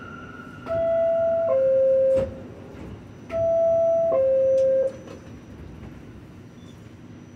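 NYC subway R46 car's door-closing chime, a falling two-note ding-dong sounded twice, signalling that the doors are about to close, over the car's steady background hum.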